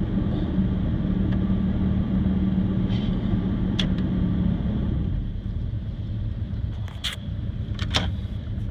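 Chevrolet truck engine idling shortly after a cold start, heard from inside the cab: a steady low drone whose humming tone drops away about five seconds in while a low rumble carries on. Three short sharp clicks come through, one near the middle and two near the end.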